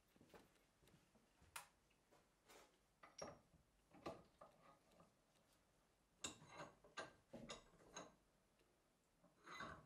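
Quiet, irregular clicks and light metallic knocks of a 1950s Paramo No.5 cast-iron bench vice being worked by hand: the sliding tommy-bar handle and the screw turning the jaw. The knocks come in small groups, with a louder cluster near the end.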